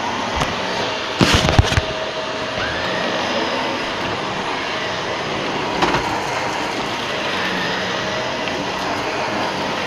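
Shark Rotator Professional Lift-Away upright vacuum running over carpet, a steady motor and brushroll drone. A quick cluster of knocks comes about a second in, and a single knock near six seconds.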